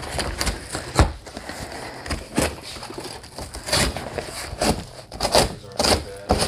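Toy boxes and packaging being handled: irregular knocks, clatter and rustling, with the sharpest knock about a second in.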